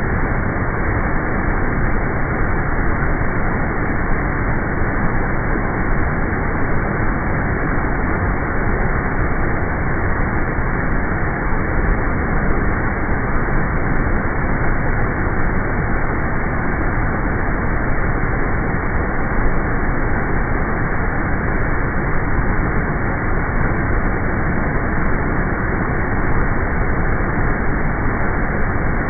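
Rushing water of a waterfall: a loud, steady, unchanging wash of noise.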